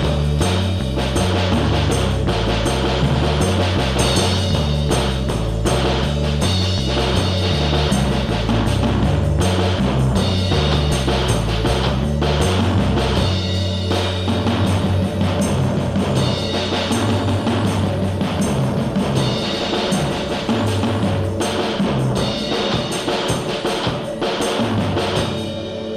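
Instrumental background music with a drum kit and a stepping bass line; the deep bass drops out about halfway through while the drums carry on.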